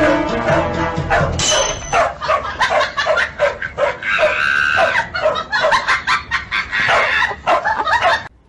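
Dogs barking rapidly, several short barks a second, over background music.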